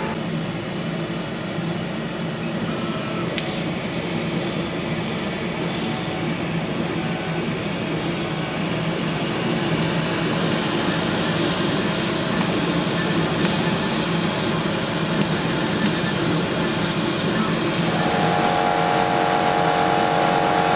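Chinese CO2 laser cutter running a cut, a steady whooshing machine noise with a low hum from its air assist and fans as the head traces the puzzle pieces through the card. A steady pitched tone joins near the end.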